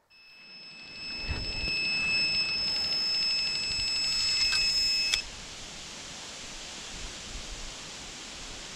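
Electronic carp bite alarm sounding a rapid, unbroken string of high beeps, cutting off suddenly about five seconds in: a carp has taken the bait and is pulling line off the reel.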